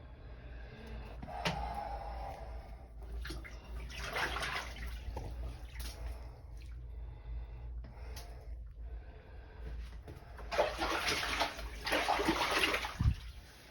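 Water rushing in two bursts, the second longer and louder, over a low steady hum.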